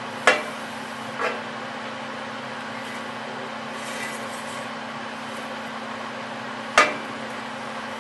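A steady low hum with sharp knocks: one about a quarter second in, a fainter one about a second in, and a loud one near the end.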